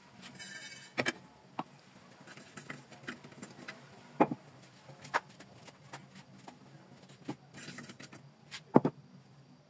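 Kitchen utensils knocking and clinking a handful of times, with two brief rustles between; the sharpest knock comes near the end.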